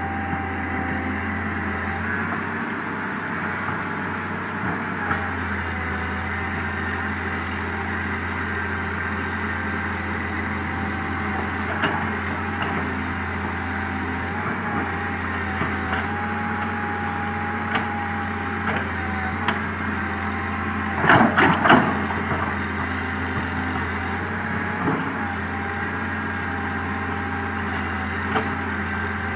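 Komatsu PC200 excavator's diesel engine running steadily, with scattered short knocks and a cluster of loud knocks about two-thirds of the way through.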